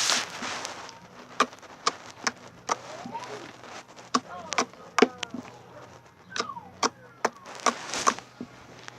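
Slime being played with by hand, giving off irregular sharp clicks and pops, about one or two a second, some with short gliding squeaks.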